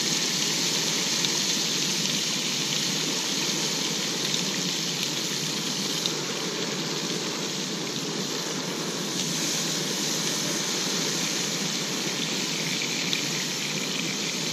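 Trout fillets frying in melted butter in a nonstick pan: a steady sizzle.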